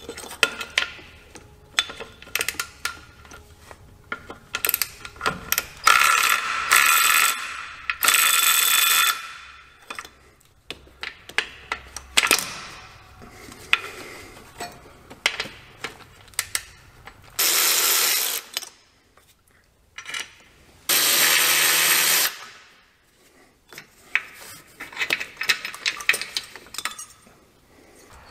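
Cordless electric ratchet running in about four short bursts, each around a second long, backing out bolts on a Ford 4R70W automatic transmission, with sharp clicks and clinks of the tool and bolts in between.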